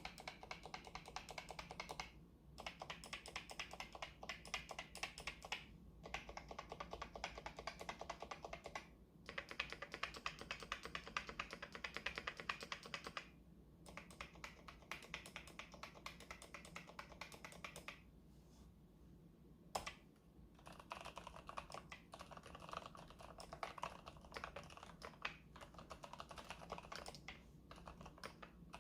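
Keychron K8 Pro tenkeyless mechanical keyboard with silent brown switches being typed on quickly: quiet runs of rapid keystrokes broken by several short pauses.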